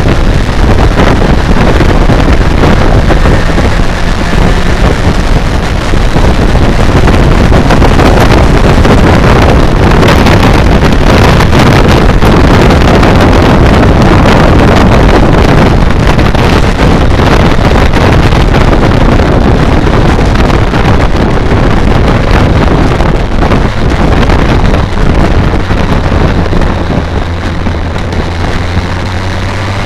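Motorcycle riding at road speed: heavy wind rushing over the bike-mounted microphone, with the BMW K1200R Sport's inline-four engine running beneath it. In the last few seconds the wind eases and the engine's steady note comes through as the revs drop.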